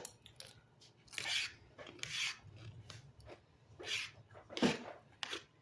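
Close-miked eating sounds: a handful of short, crunchy, rasping noises, four of them louder than the rest, as food is chewed and handled.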